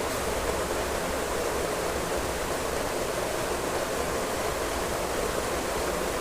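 Steady, even rushing noise with no breaks or changes, like a running fan or recording hiss.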